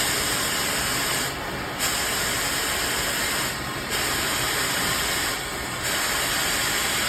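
Oxy-acetylene cutting torch hissing loudly and steadily, dropping back briefly about every two seconds.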